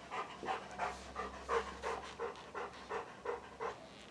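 A dog panting steadily, about three breaths a second, stopping shortly before the end.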